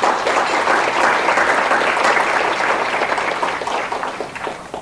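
Room of guests applauding, swelling at once and dying away near the end.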